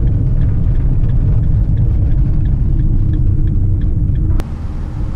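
Steady low rumble of road and engine noise inside a camper van's cab while driving. The level drops abruptly about four seconds in.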